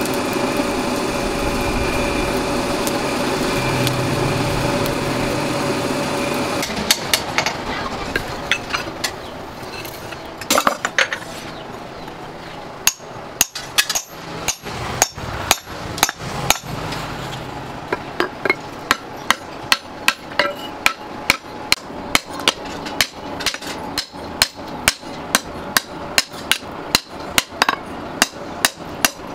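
Forge blower running steadily with a hum, stopping about seven seconds in. Then hand-hammer blows on a glowing axe head, metal striking metal, scattered at first and then a steady run of about two strikes a second.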